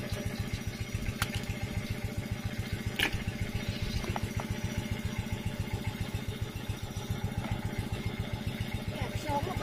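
A small engine idling steadily with a rapid, even thudding. A few light clicks and rattles of crab and snail shells being handled in a plastic basin sound over it.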